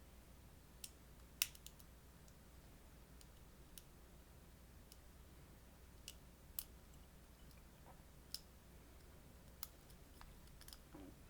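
Sparse, irregular small clicks and ticks from a wafer-tumbler LOTO padlock being picked, over a faint low room hum. The loudest click comes about a second and a half in.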